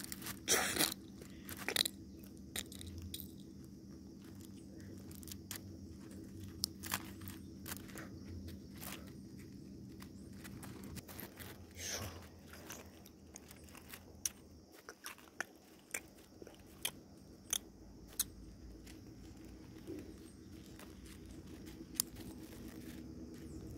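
Faint, irregular crunching clicks of chewing and biting, over a low steady hum.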